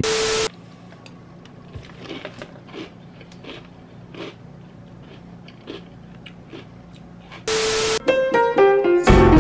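Faint crunching and light ticks of someone eating from a bowl with a spoon over a low steady hum. The stretch is bracketed by two identical short loud bursts of hiss carrying a steady tone, one at the start and one about seven and a half seconds in. Piano music begins about eight seconds in and is the loudest part.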